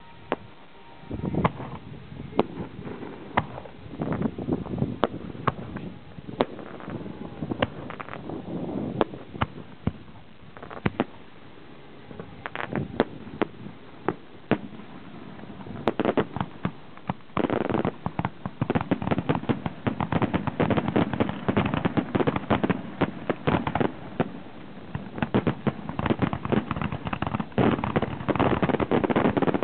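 Aerial fireworks shells bursting with scattered sharp bangs. From a little past halfway the bangs come thick and fast in a dense barrage that grows louder.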